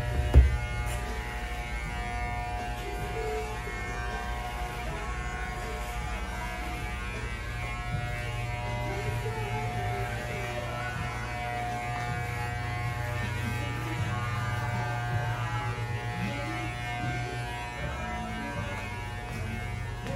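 Electric hair clippers buzzing steadily during a haircut, with a brief thump about half a second in.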